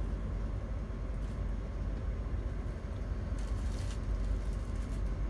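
Steady low rumble of a passenger train running, heard from inside the carriage.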